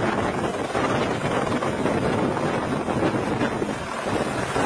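Close-up helicopter noise from a light Écureuil-type helicopter in a low hover. Rotor downwash buffets the microphone with a steady, heavy rush of wind.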